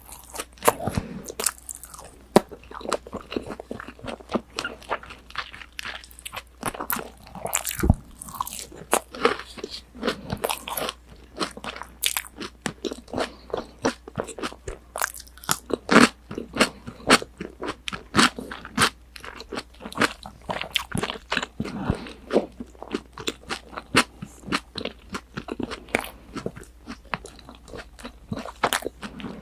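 Crispy breaded pork cutlet (tonkatsu) being bitten and chewed close to a binaural microphone: a rapid, irregular run of sharp crunches.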